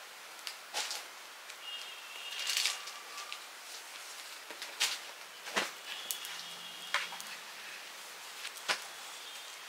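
Cloth being handled and laid out: faint rustling of fabric with scattered light clicks and taps, the sharpest two about halfway through and near the end.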